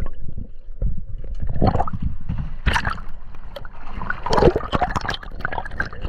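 River water splashing and gurgling in irregular bursts, with sudden sloshes close by.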